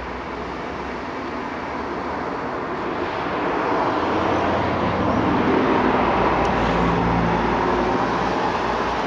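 Road traffic noise: a vehicle passing, its tyre and engine noise swelling to a peak about five to seven seconds in, then easing slightly.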